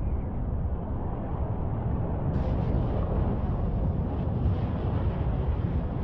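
Wind buffeting an outdoor microphone: a steady low rumble with a hiss above it, a little brighter after about two seconds.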